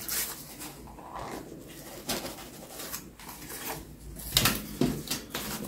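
A bird cooing faintly, with a few sharp clicks and light knocks, the loudest about two seconds in and again past four seconds.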